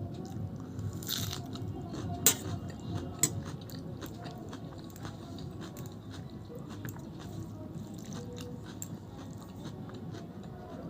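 A person eating a meal of rice, dal and fried fish: chewing and mouth sounds with frequent small clicks and crunches, a brief hiss about a second in and a sharp click a little after two seconds.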